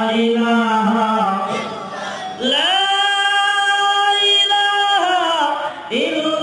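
A man singing a devotional chant. A lower wavering line, then from about two and a half seconds in one long high note held for about two and a half seconds, sliding up into it and down out of it, before the lower line returns near the end.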